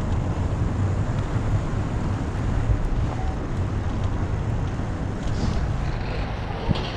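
Wind buffeting the microphone while cycling: a steady, low rushing noise, with a faint click near the end.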